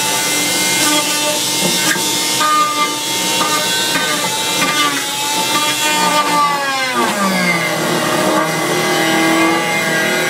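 Kitchen-mixer electric motor running bare with a high whine while a wooden 2x4 is pressed against it. About seven seconds in, its pitch sags sharply as the wood drags on the shaft, then climbs partly back.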